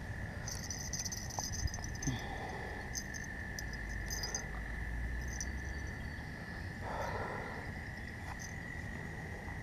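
Insects chirping in short, high-pitched bursts over a steady high drone, with a brief rustle about seven seconds in.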